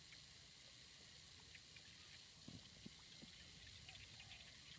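Near silence: a faint steady background hiss with a few soft ticks, and two light knocks about two and a half seconds in.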